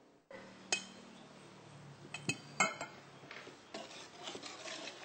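Kitchen dishes and utensils clinking as they are handled on a table: one sharp clink about a second in, a quick cluster of three clinks around two and a half seconds in, then softer handling and rustling.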